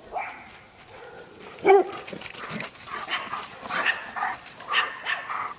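Chocolate Labrador retriever puppies barking and yipping at play: one loud bark about a third of the way in, then a run of short, high yips.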